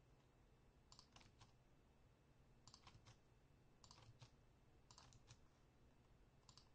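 Faint computer keyboard typing: short groups of two or three keystrokes about once a second over a quiet background.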